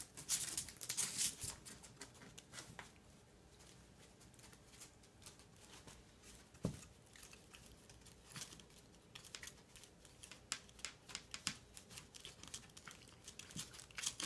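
A small dog's claws scraping and tapping on a tile floor as its legs paddle and stiffen during a seizure. The sound comes as faint clicks and scrapes in clusters, with a quieter stretch in between.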